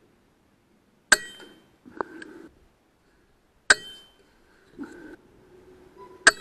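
Three shots from an AGT Uragan 2 .22 PCP air rifle, each a sharp crack with a short metallic ring, about two and a half seconds apart. After the first two shots comes a softer, brief rattle.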